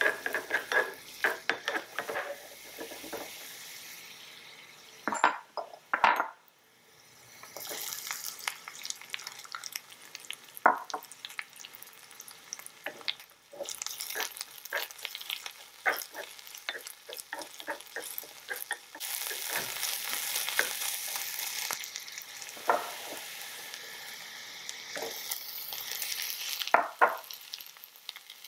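Garlic and onion sizzling in a miniature stainless-steel wok, with a small wooden spatula stirring and tapping against the metal in many short clicks. Raw beef strips are in the pan and sizzling near the end.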